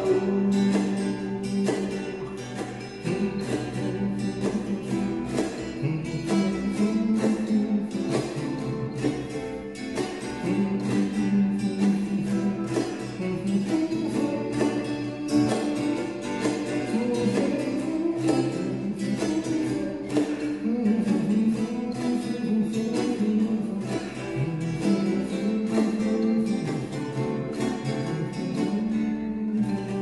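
Acoustic guitar played without singing: a steady run of plucked notes and chords carrying the song's instrumental ending.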